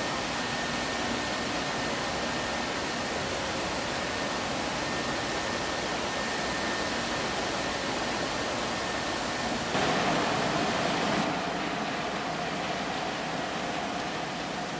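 Steady rushing noise of a ferry's engines and churned water as it comes in to berth. A louder surge comes about ten seconds in, and a steady hum follows it.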